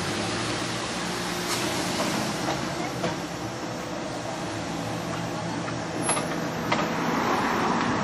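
Road traffic driving over a railway level crossing: vehicle engines running with a steady low hum, and a car passing close near the end.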